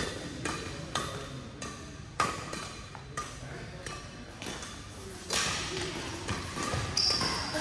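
Badminton rackets striking a shuttlecock in a rally: sharp hits roughly every half second to second, ringing in a large hall. A broader rush of noise comes in about five seconds in, and a short high squeak, as of a shoe on the court floor, follows near the end.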